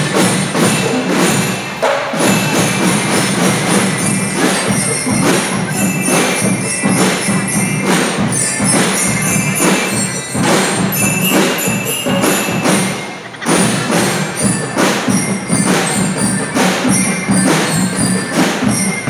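A drum and lyre band playing: snare and bass drums beat a steady march rhythm under the ringing metal bars of bell lyres carrying the tune. The playing drops briefly about 13 seconds in, then picks up again.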